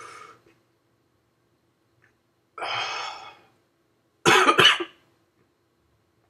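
A man coughs: a long breathy exhale about two and a half seconds in, then a quick run of loud coughs about four seconds in. The coughing comes from the burn of a Trinidad Moruga Scorpion chili pepper he has just eaten.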